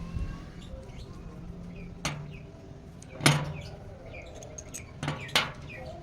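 A few sharp knocks, about four, the loudest about three seconds in, with faint background noise between them.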